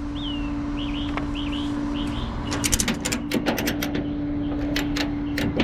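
Small birds chirping, several short falling calls in the first couple of seconds, over a steady low hum. Runs of sharp ticks follow in the second half.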